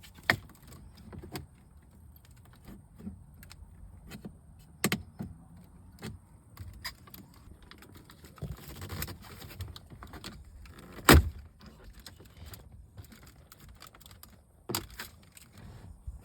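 Clicks and knocks of plastic car interior trim being pried at and handled with a trim removal tool, with a few sharper clicks, the loudest about eleven seconds in.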